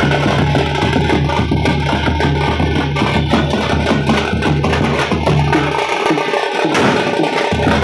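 Funeral street-band drumming: frame drums beaten with sticks in a fast, dense rhythm, with a large bass drum booming underneath.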